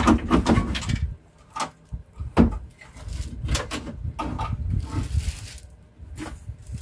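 Irregular knocks, clunks and scrapes of a removed car headlight unit being handled and set down among tools.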